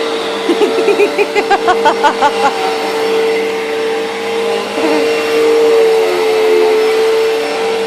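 Vacuum cleaner running steadily with a constant droning hum. From about half a second to two and a half seconds in, a rapid, wavering high-pitched vocal sound rises and falls over it.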